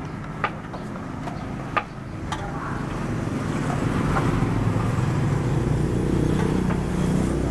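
A motor vehicle's engine running close by on the road, growing louder from about three seconds in and staying loud. A few sharp clicks, like utensils knocking, sound in the first couple of seconds.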